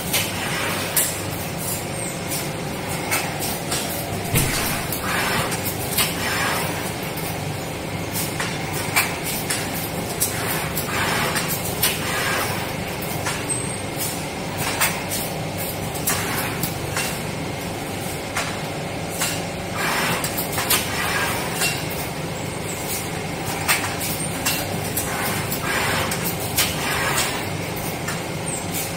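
Feeder of an automatic thick-film screen printing machine running: a steady machine hum with frequent sharp clicks and short hisses as the loader takes substrates from the rotary magazine and sets them on the conveyor.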